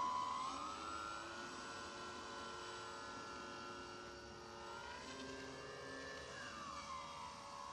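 Model airplane's motor and propeller whining in flight, the pitch stepping up about half a second in and again near the five-second mark, then dropping back near the end as the throttle changes.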